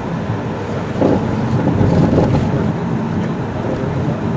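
Steady engine and road noise of a moving car heard from inside the cabin, with a few faint knocks.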